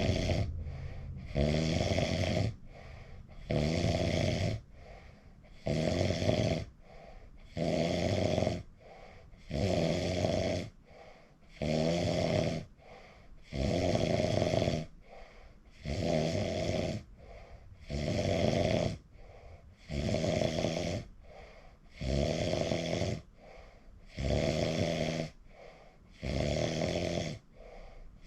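A sleeping person snoring loudly and rhythmically, a rough rattling snore of about a second on each breath, repeating about every two seconds with quieter breathing in between.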